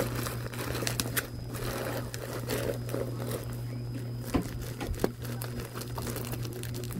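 Plastic packaging crinkling and rustling as it is worked open by hand, with a few sharp clicks, over the steady hum of an electric fan.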